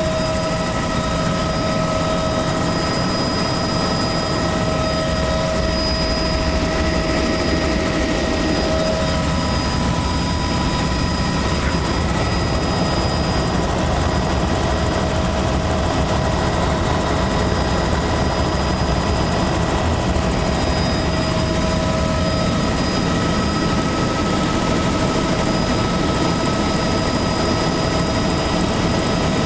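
Helicopter in flight heard from inside the cabin: a steady, loud drone of engine and rotors with several high whining tones held throughout.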